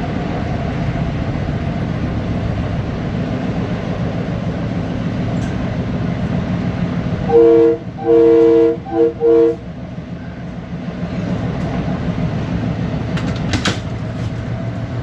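Long Island Rail Road M3 electric train running steadily on the rails, with a multi-note train horn sounding four blasts about seven seconds in: a short one, a longer one, then two short ones. A brief clatter near the end.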